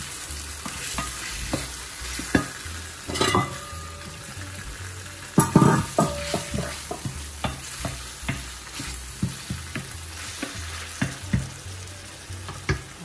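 Tomatoes and onions sizzling in oil in a stainless steel pan while a wooden spoon stirs them, knocking and scraping against the pan; the loudest knocks come about five to six seconds in.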